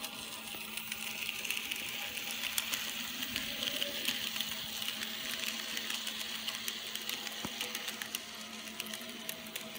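Bachmann N scale Trailblazer model train running past on its track: the locomotive's small electric motor whirring, with many small clicks of the wheels over the rails. The whir grows louder from about a second and a half in as the locomotive passes close, then fades as the cars follow.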